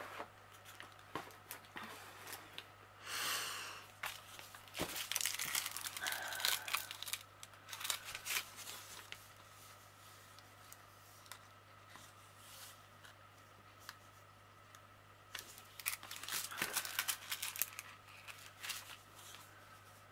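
Small plastic bags of diamond painting drills crinkling and rustling as they are handled, in irregular bursts a few seconds in and again near the end, quieter in between.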